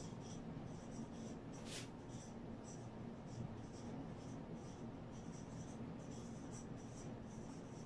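Whiteboard marker squeaking and scratching on a whiteboard in short, irregular strokes as words are written, faint.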